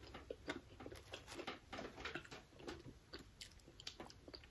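Faint chewing and wet mouth smacks of people eating fried chicken wings, a scatter of small irregular clicks.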